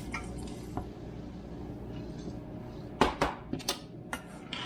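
Kitchenware knocking and clinking against a saucepan, about five sharp clinks in quick succession starting about three seconds in, as oats are added to the melted butter and sugar.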